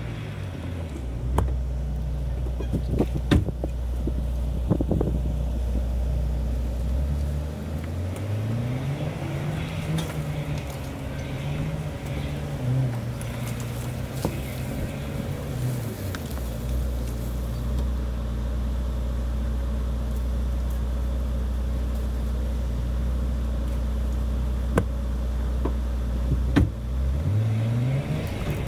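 Pickup truck engine running at low revs, revving up after several seconds and holding higher revs for a while. It drops back to low revs around the middle and starts rising again near the end. A few short knocks and clunks sound along the way.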